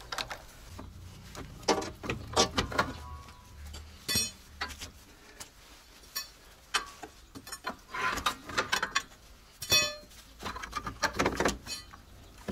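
Repeated metal clanks, clinks and scrapes of tools and steel parts being worked on a KAMAZ truck's drum brake, as the brake shoes are pried off the backing plate; a few of the strikes ring briefly.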